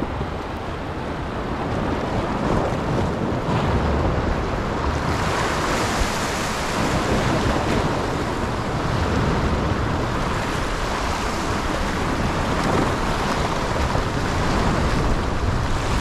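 Steady rush of wind and sea waves, with wind buffeting the microphone; the noise grows stronger and brighter about five seconds in.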